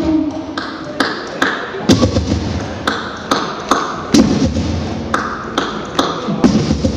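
Live band's percussion keeping a steady beat of sharp clicks, a little over two a second, in a stripped-down passage of the song, with a voice over it.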